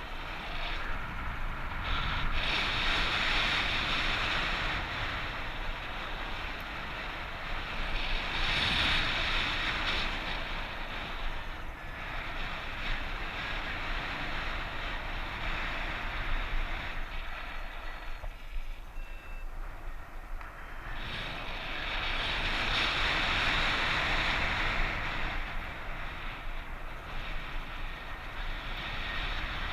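Strong wind rushing over the microphone during paraglider flight, swelling and easing in gusts, with a lull a little past the middle.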